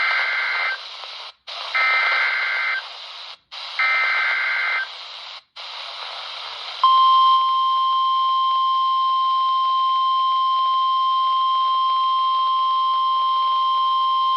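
Emergency Alert System alert on NOAA Weather Radio, received with a hiss of static: three short bursts of SAME digital header data, each a warbling two-tone screech with a brief silence between. About seven seconds in, the steady 1050 Hz warning alert tone begins and holds.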